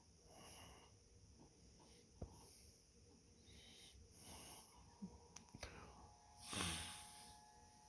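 Faint breathing close to the microphone, soft puffs about once a second, with one louder breath about six and a half seconds in and a few small clicks.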